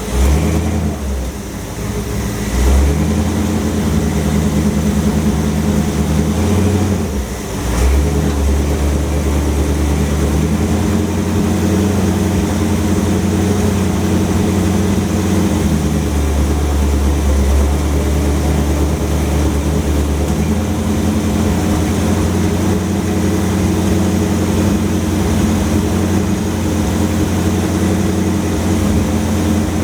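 Car engine running, its note dipping and shifting a couple of times in the first several seconds, then holding steady.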